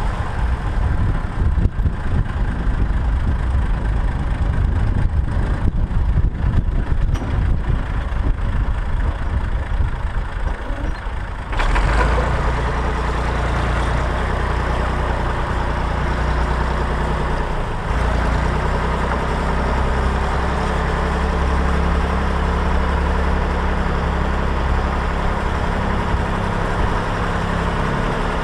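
Massey Ferguson 135 tractor engine running, with an uneven rattling for roughly the first third that gives way suddenly to a steadier, deeper drone.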